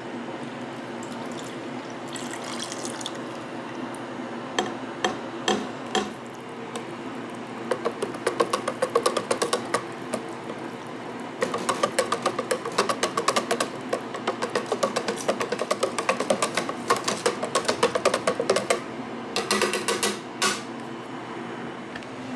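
Liquid being poured into a plastic tub of mango gelato mix. Then a wire whisk beats the mix in the tub, with fast clicking strokes against the tub's sides that stop briefly about halfway through. A steady low hum runs underneath.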